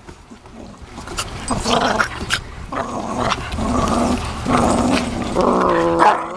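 Small dogs play-growling at each other during rough play, in uneven bouts with sharp clicks among them and a drawn-out pitched cry near the end.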